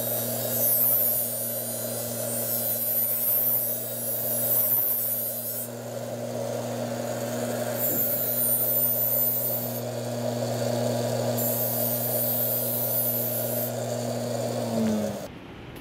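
Bench buffer motor running with a steady hum while the Master Kuo GL-500 tuna knife's edge is buffed on a stitched cotton wheel. The blade on the wheel adds a high hiss that comes and goes in several spells. Near the end the motor sound falls away and stops.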